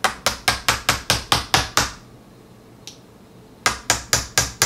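A small hammer tapping receiver pins into a Charles Daly N4S shotgun's receiver: a quick run of about nine sharp taps, around four a second, then a pause of nearly two seconds and another run of taps near the end.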